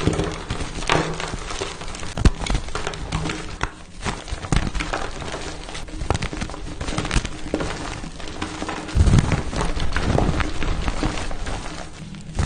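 Pasted gym chalk block being crushed by hand, a dense run of crunching and crackling as it crumbles, with a heavier, deeper crunch about nine seconds in.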